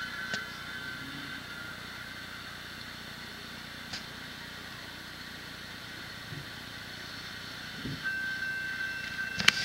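Steady outdoor background hiss, with a car driving across a wet road crossing near the end, rising in level as it passes. A steady high tone comes in at about the same moment, and a sharp click is heard just before the end.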